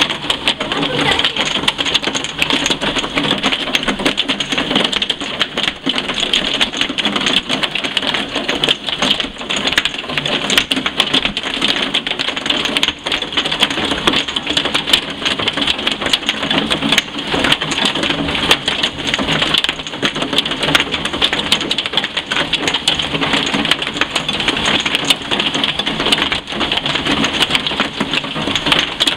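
Heavy downpour: a steady, dense patter of rain on hard ground and runoff water, full of tiny sharp ticks as drops strike.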